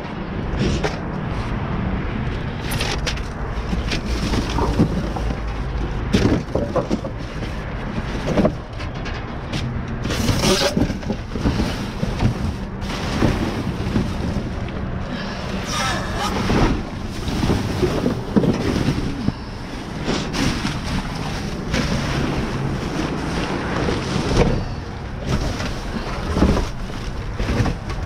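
Plastic trash bags, paper and cardboard boxes rustling and clattering as they are rummaged through by hand, in many short irregular bursts over a steady low rumble.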